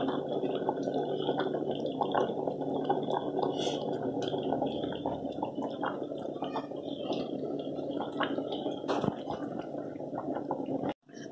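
Thick meatball curry simmering in an aluminium pot over a gas flame: a constant crackle of small bubbles popping and plopping, over a steady low hum. The sound drops out briefly near the end.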